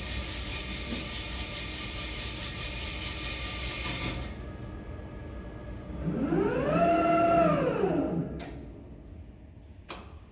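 Diamond-cut wheel lathe running, with a steady hiss for about four seconds that then drops away. A motor whine rises and falls in pitch for about two seconds as the machine winds down and the wheel stops. Two sharp clicks follow near the end.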